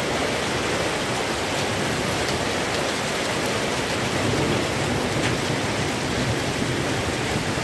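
Heavy rain pouring steadily, with small hailstones falling among it and a few faint ticks standing out from the steady rush.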